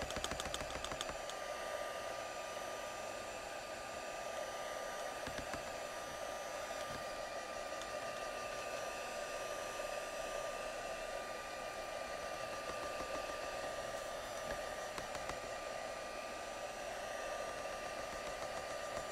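Stampin' Up! heat tool (a craft heat gun) blowing steadily, its fan running with a thin steady whine, drying damp watercolour paper.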